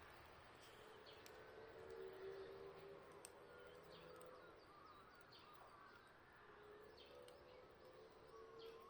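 Faint birdsong: many short chirping calls over a steady low hum, with a few scattered small clicks.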